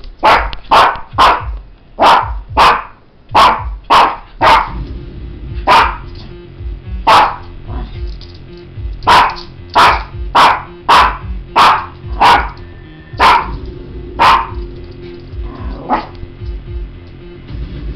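Small dog barking excitedly: about twenty sharp, loud barks in quick runs of two to four, with short pauses between the runs.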